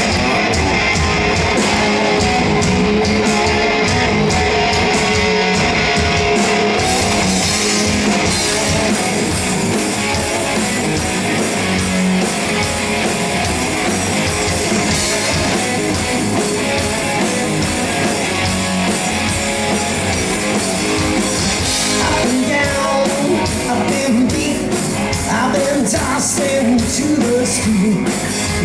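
Hard rock band playing live: distorted electric guitars through Marshall and Orange amplifiers, bass guitar and drum kit, loud and steady. A lead voice comes in over the band in the last few seconds.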